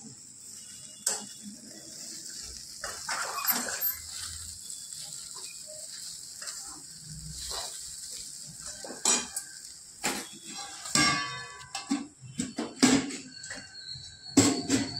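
Metal slotted spoon scraping and clinking against a frying pan as torn pieces of leftover roti are stirred and tossed, over a steady high hiss. The clinks come faster and louder in the second half, and a sharp metal clank near the end comes as a steel lid is handled.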